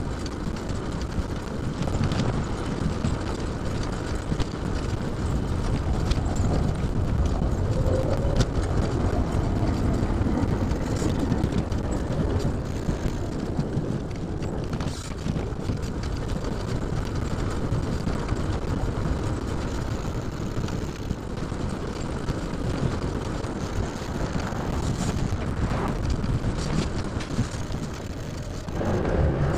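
Steady rumbling wind on the microphone and road noise while moving along streets, with a few light clicks and rattles.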